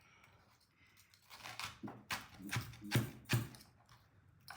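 Kitchen knife chopping onion and garlic into small pieces: several sharp strikes starting about a second and a half in.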